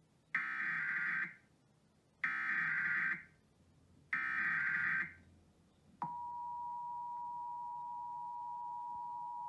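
Emergency Alert System SAME header: three screeching digital data bursts, each about a second long, followed about 6 s in by the steady two-tone EAS attention signal, which holds without a break.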